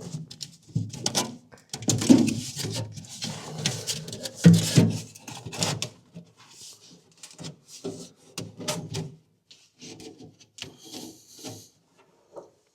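A stiff cardboard-backed sound-deadening pad being worked into place against a Willys MB Jeep's steel firewall: irregular scraping, rubbing and knocks, busiest in the first half and lighter and more scattered after.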